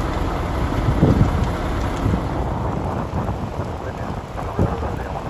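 A wildfire burning close by through brush and vehicles: a steady crackling, rumbling noise, with louder low swells about a second in and again near the end.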